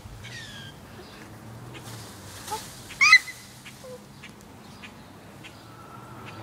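A bird calling outdoors: faint chirps near the start, then a loud quick chattering burst of high chirps about three seconds in, over a low steady hum.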